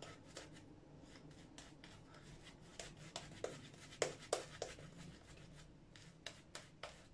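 Shaving brush working shaving-soap lather over the beard and neck: faint, soft brushing strokes with short wet clicks several times a second, a few louder ones a little past the middle.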